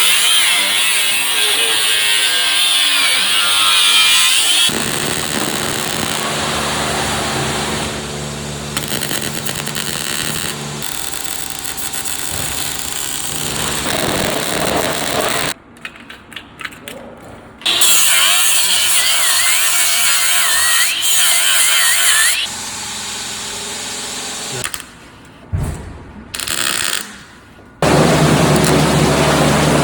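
Power tools running in several separate runs a few seconds each, the loudest a high, wavering whine at the start and again about two-thirds through, with a steadier machine hum between them.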